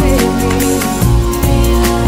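Background music with a steady beat and a gliding melody line.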